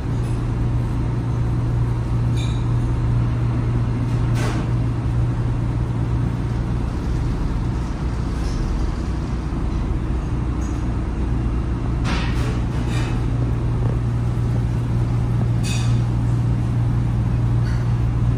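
Steady low machinery hum, an unbroken drone throughout. A few faint light taps come from a hand-held mesh sieve being tapped to dust sugar over the buns.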